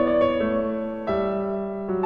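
Background piano music: slow, gentle notes held and overlapping, a new note struck about every half second.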